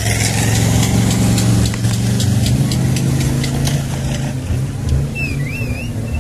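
Off-road 4x4 truck's engine running hard and revving as it drives through a muddy stream crossing, with a fast run of sharp ticks in the first few seconds. A warbling whistle sounds near the end.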